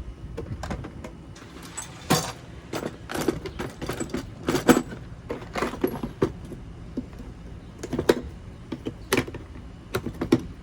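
Tools and small metal parts in a toolbox being handled and set down: irregular clinks, knocks and rattles, a few of them sharp and loud.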